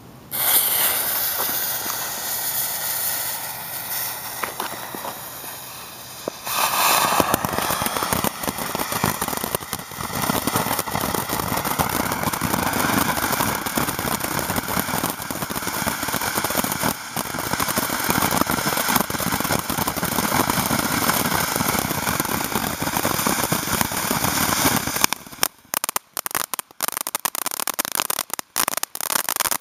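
Ground fountain firework burning: it starts hissing within the first second, grows louder about six seconds in, and turns into rapid crackling pops near the end.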